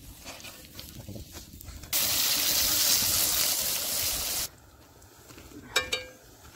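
Potato pakoras deep-frying in hot oil in an iron kadhai: a loud, even sizzle that starts suddenly about two seconds in and cuts off sharply about two and a half seconds later. Faint clicks come before it, and a single sharp clink comes near the end.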